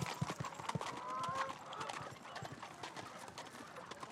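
Horses' hooves clip-clopping at a walk on stone, getting fainter as they go.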